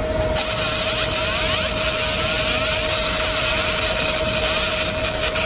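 Laser marking machine etching a textured black-coated aluminum instrument panel: over a steady hum, the laser starts firing about a third of a second in with a loud high hiss, and sweeping whistles rise and fall as the beam traces the marking.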